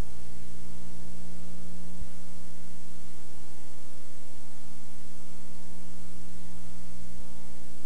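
Steady electrical mains hum with hiss, the background noise of an old analogue film or tape transfer, with no other sound on it. There is a faint click about two seconds in and another near the end.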